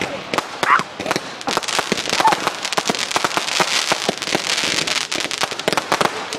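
Fireworks going off: a dense run of rapid cracks and pops that thickens into near-continuous crackling from about two seconds in.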